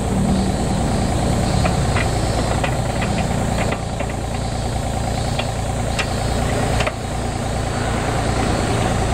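Mini excavator's diesel engine idling steadily, with a few short sharp clicks over the first six seconds as the grab attachment on the arm is handled.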